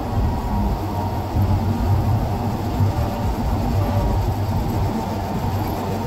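Diesel engine of a crane running steadily while it lifts a steel pile casing, heard from inside the operator's cab: an even, low rumble.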